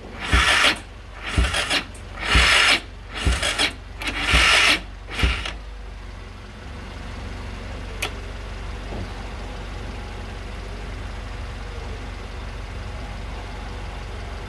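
Yamaha XT600E's electric starter cranking the single-cylinder engine slowly and heavily, straining in bursts about once a second, a sign of hard starting. The cranking stops about five seconds in, leaving a steady low drone with a single sharp click a few seconds later.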